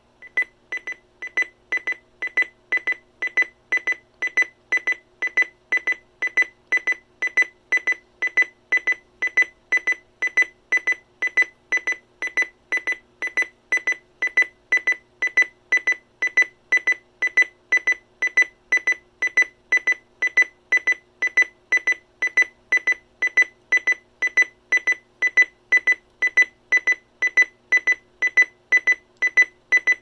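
Uniden Bearcat BC370CRS scanner's clock alarm going off: a steady train of high-pitched electronic beeps, about two a second.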